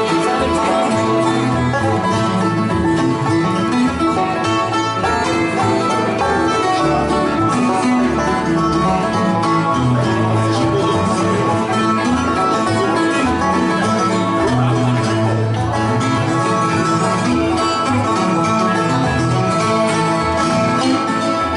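Bluegrass band playing an instrumental passage, with banjo and guitar picking and a stepping bass line underneath.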